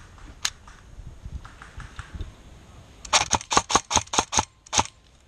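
Airsoft rifle firing a quick string of about ten sharp shots, starting about three seconds in and lasting under two seconds.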